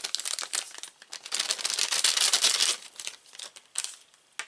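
Packaging crinkling and rustling with many small crackles as the Rode VideoMicro's cable is pulled out and unwrapped. The crinkling is densest and loudest in the middle, then thins to a few scattered clicks near the end.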